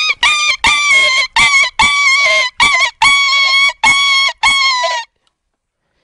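A man's vocal imitation of a dog yelping in pain after being hit with a stick: a rapid series of short, high-pitched yelps, about two a second, stopping about five seconds in.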